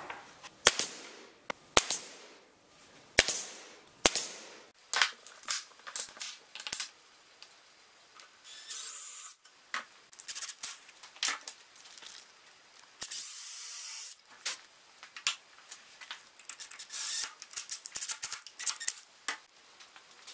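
Sharp knocks and clicks of wooden jig pieces and one-handed bar clamps being set down and clamped onto a glass sheet, the first few ringing briefly, then quicker runs of clicks near the end. Two short hissing noises of about a second each come in the middle.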